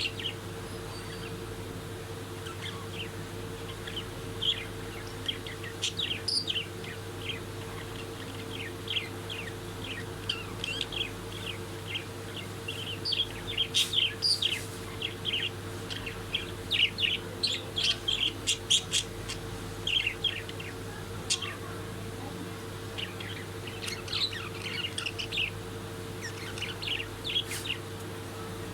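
Budgerigars chirping and chattering in quick bursts of short, high calls, busiest through the middle, over a steady low hum.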